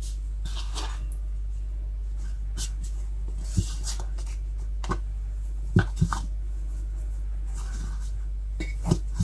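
A cloth kitchen towel rustling as it is spread over a pot and folded up over the lid, with several light knocks as the lid is set down and handled, the loudest a little before the middle. A steady low hum runs underneath.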